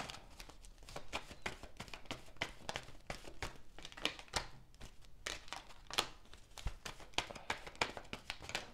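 A deck of tarot cards being shuffled by hand: a quick, uneven run of soft slaps and flicks of card against card.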